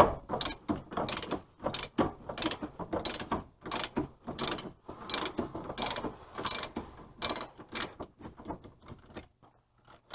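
Hand ratchet wrench clicking in quick, repeated back-and-forth strokes as a nut is run along damaged axle threads to clean them up; the clicking stops about nine seconds in.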